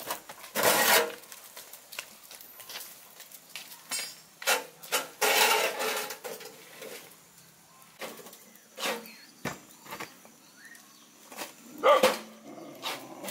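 Hollow concrete blocks knocking and scraping as they are lifted out of a metal wheelbarrow and set down around a ground fire: a handful of separate clunks and scrapes, the loudest near the end.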